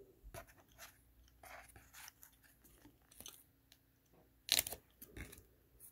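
Trading cards being shuffled by hand through a stack: faint, scattered rustles and flicks of card stock sliding over card, with a louder pair of snaps about four and a half seconds in.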